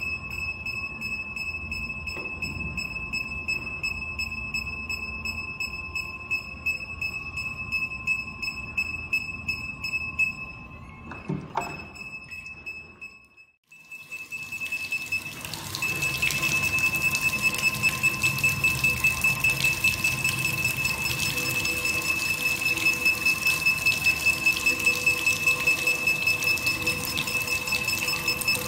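Truck parking sensor system's warning buzzer beeping in a steady train of high-pitched beeps while it detects an obstacle. About halfway through there is a knock and a brief break. After that, water spraying and splashing onto the unit joins the beeping, which keeps going while the unit is wet.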